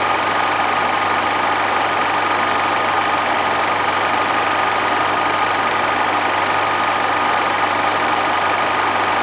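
A steady mechanical running sound, a whirring drone with a fast rattle and a constant high tone, unchanging throughout.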